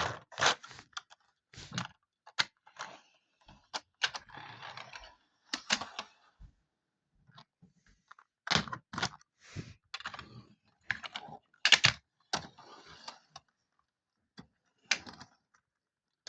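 Irregular sharp clicks and light knocks of small hard plastic objects being handled, with a short pause about halfway through.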